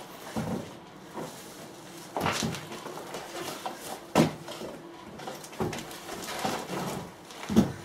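Feet and body knocking and scuffing on wooden deck boards during a floor-to-standing exercise, a thump every second or two, with the loudest knocks about four seconds in and near the end.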